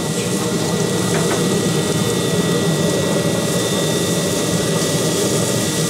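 Pellet grill running hot, its burning fire pot and combustion fan giving a steady roar with a thin steady whine in it.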